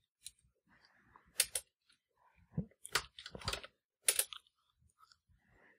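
A few scattered keystrokes on a computer keyboard, faint and irregular, as a terminal command is confirmed and a sudo password is typed.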